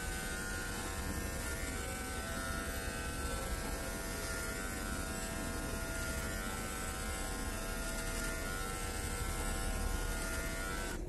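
Corded electric hair clippers buzzing steadily as they cut a man's hair, stopping right at the end.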